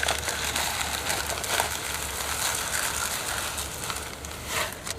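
Dry 4 mm fishery pellets poured into a bait container, a continuous rattling hiss that swells briefly near the end.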